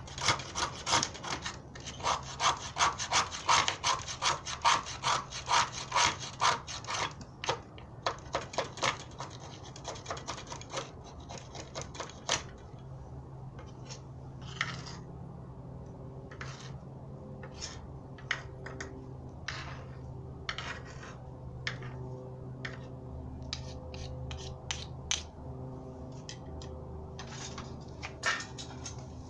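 A knife scraping a stick of fatwood, making shavings: fast repeated strokes, about three or four a second, for roughly the first twelve seconds, then slower, fainter strokes spaced out through the rest.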